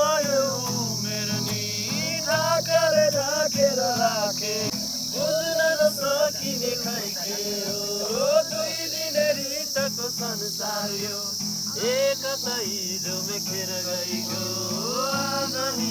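Background music: a gliding melody over steady low chords. A steady high chirring of crickets runs underneath.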